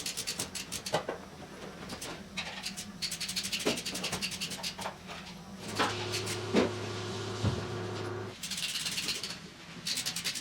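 Electric shop crane at work: rapid metallic clicks and rattles throughout, with a steady motor hum for about two and a half seconds past the middle, then a short hiss.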